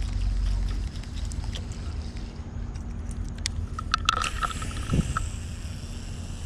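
Wind rumbling on the microphone, then a cast with a Daiwa Tatula baitcasting reel: a few clicks and a thump, and from about four seconds in the spool spinning freely with a steady high whir as line pays out.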